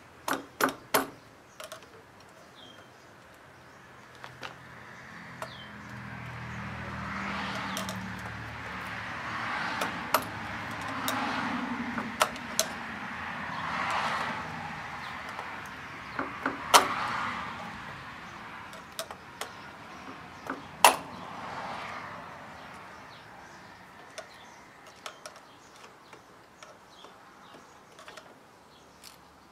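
Screwdriver tip clicking and scraping against the steel locknut of a cable connector in a metal electrical box as the nut is driven tight, in scattered sharp metallic clicks. From about five seconds in until past twenty seconds, a broad noise with a low hum swells up and fades away under the clicks.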